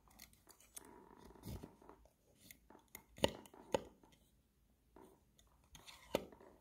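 Steel vernier caliper being handled as its depth rod is pushed into a pellet hole in a wooden block and the slide is moved: faint scraping, then a few sharp metallic clicks in the middle and one more near the end.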